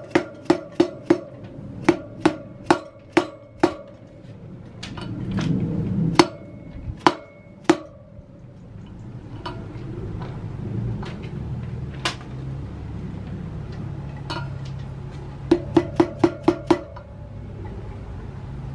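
An orange mallet tapping a steel socket used as a driver, seating a rubber seal into a motorcycle wheel hub. The taps are sharp with a short metallic ring: a quick run of about nine in the first four seconds, a handful of spaced single taps in the middle, and a fast run of six near the end.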